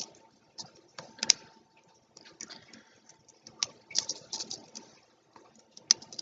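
Irregular plastic clicks and rattles from handling a small laser pointer's plastic case and its interchangeable tips, with a sharper snap about a second in and another near the end.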